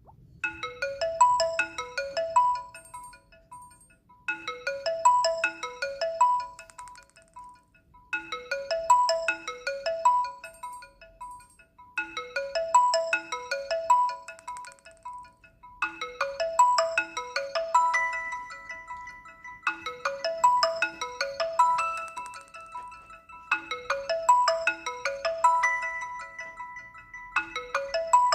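Lenovo A6000 smartphone alarm tone: a short melody of quick ringing notes, repeating about every four seconds. From about halfway through, held notes sound under the melody.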